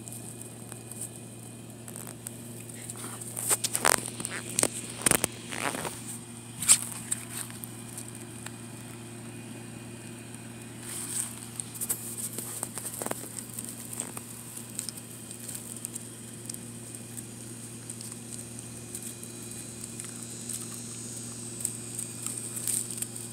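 Dry twigs and leaves crackling and snapping as a dog mouths and chews a dry frond in the grass. The snapping comes in irregular bursts of clicks, heaviest a few seconds in and again near the end, over a steady low hum.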